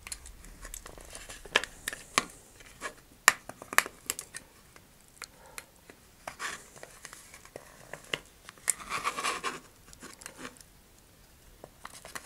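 Hobby knife carving at the hole in a hollow plastic nose cone to enlarge it: irregular sharp clicks and short scraping rasps as bits of plastic are cut away, with a longer scrape about two-thirds of the way in.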